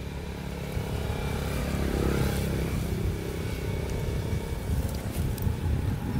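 A motor vehicle engine, most like a motorcycle's, running nearby as a steady low rumble that swells about two seconds in.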